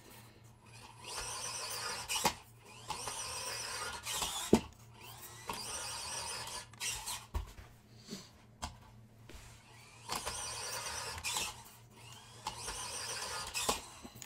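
A 1/24-scale FMS FCX24 mini RC crawler's electric motor and gears whining in about five short throttle bursts, with a few sharp knocks in between as the truck bumps the ramp and tips over.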